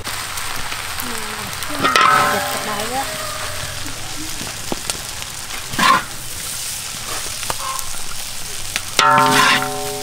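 Fried rice sizzling steadily in a large wok as it is stirred and scooped out with a metal spatula, with a short loud scrape about six seconds in. Short calls break in about two seconds in and again near the end.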